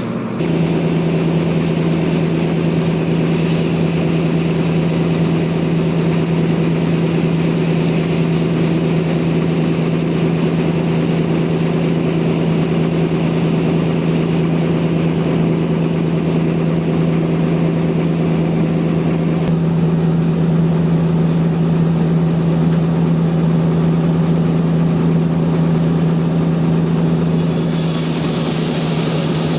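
Sawmill machinery running with a loud, steady hum; the sound brightens with added hiss near the end.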